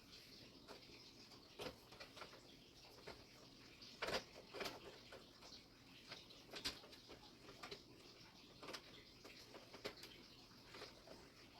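Faint, irregular clicks and rustling of power cables and plastic connectors being handled and routed inside a PC case, with the sharpest clicks about four seconds in and again near the middle.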